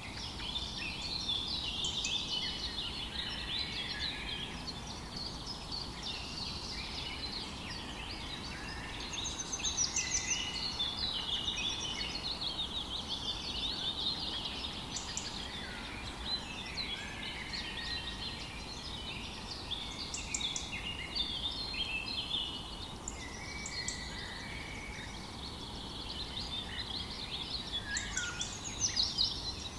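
A flock of small finches chirping and twittering without a break, many quick overlapping calls, over a low steady rumble of background noise.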